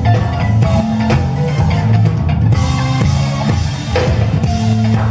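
Live funk band playing an instrumental groove, drum kit and bass guitar to the fore. Kick and snare keep a steady beat under held bass notes, and a cymbal wash comes in about halfway.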